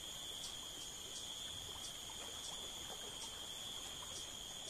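Steady insect chorus: a constant high-pitched buzz with a fainter chirp repeating a couple of times a second.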